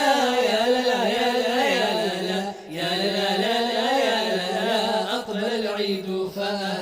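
Wordless vocal interlude of a nasheed: voices carrying a wavering, ornamented melody over a vocal-effects backing, with a brief dip about two and a half seconds in.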